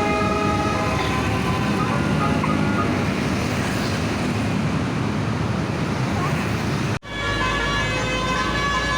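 Tour bus's Basuri telolet multi-tone air horn sounding several tones at once, over bus engine and road noise. The sound cuts out sharply for an instant about seven seconds in, and the horn tones come back clearer after it.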